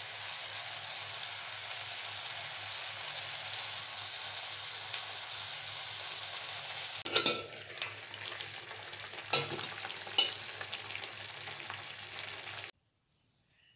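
Spinach leaves cooking in a steel kadai with a steady sizzling hiss. From about halfway, a spatula scrapes and clinks against the pan a few times while the sizzle goes on, then the sound cuts off abruptly near the end.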